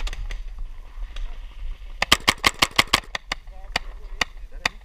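Paintball marker firing: a fast string of about nine shots about two seconds in, followed by a few single shots near the end. A faint voice can be heard.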